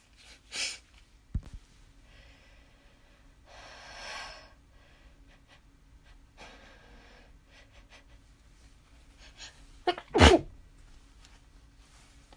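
A person sneezing: a short huff near the start and two breathy stretches about four and seven seconds in, then a sharp two-part sneeze about ten seconds in, the loudest sound.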